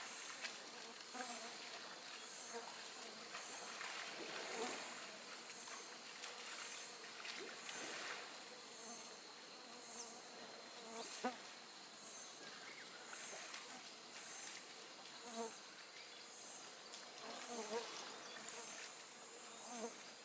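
Insects calling, a faint high-pitched pulse repeating every second or so over a steady hiss. A single sharp click about eleven seconds in, and a few faint, distant chirps near the end.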